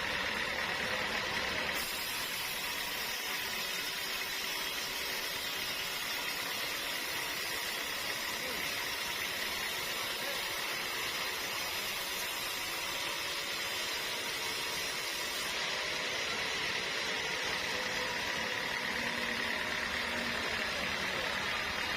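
Sawmill machinery running steadily with a dense, even machine noise. The hiss turns brighter about two seconds in and dulls again a few seconds before the end.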